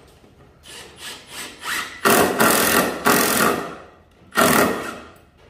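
Cordless drill driving screws into wooden bracing boards: a few short bursts of the motor, then the screw grinding into the wood in a long run about two seconds in and a shorter one near the end.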